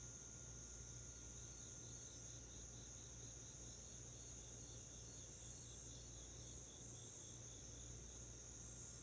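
Faint night insect chorus: a steady high-pitched trill, with a second insect chirping in a quick pulsing rhythm, several chirps a second, from about a second in until near the end.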